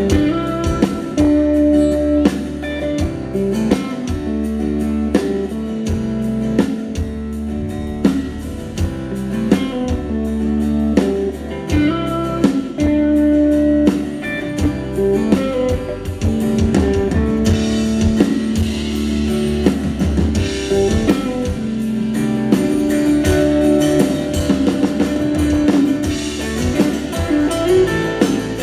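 A live band playing amplified electric guitar and acoustic guitar over a drum kit. The cymbals grow brighter for a few seconds past the middle.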